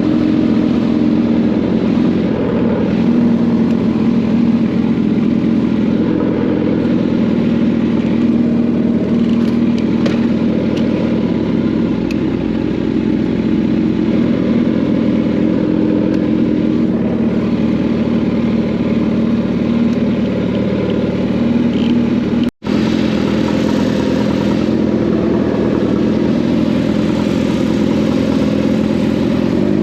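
Kawasaki inline-four sport motorcycle engine running at a steady cruise, its pitch held fairly even. A split-second dropout about three-quarters through marks a join between clips.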